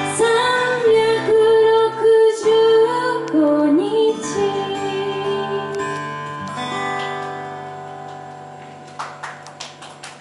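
A woman singing to her own acoustic guitar; the voice stops about four seconds in and the strummed chord rings on and fades. About nine seconds in, she starts picking quick single notes.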